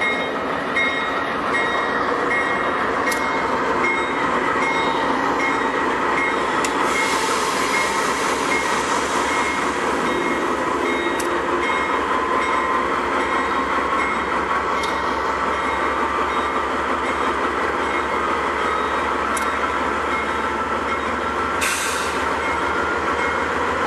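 GE CW44AC (AC4400CW) diesel-electric locomotive running past with its 16-cylinder engine droning, plus a steady rumble of wheels on rail and a few sharp clicks. A repeating beep-like ringing tone sounds through most of it and stops shortly before the end.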